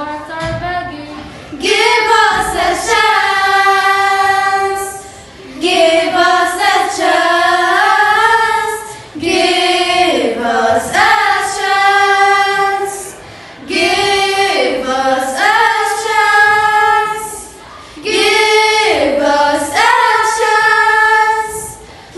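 A small group of girls singing together without accompaniment, in about five sung phrases of a few seconds each with held notes and short breaks for breath.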